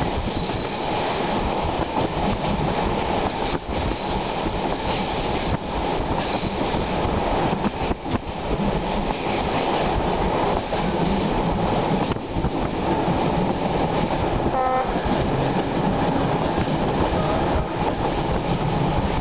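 Train running steadily, heard from on board: a continuous rumble of wheels on the rails with a faint clickety-clack. A brief pitched note sounds about three-quarters of the way through.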